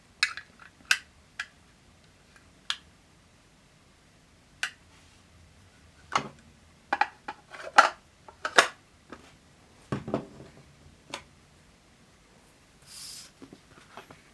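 Small hard plastic miniature pieces clicking and tapping as they are handled and set down, with irregular sharp clicks that bunch together in the middle and a brief rustle near the end.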